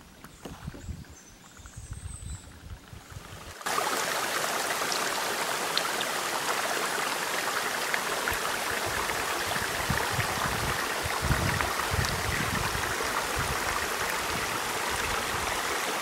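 Low, uneven rumbling for the first few seconds, then a sudden change to the steady, full rush of a mountain brook flowing over rocks.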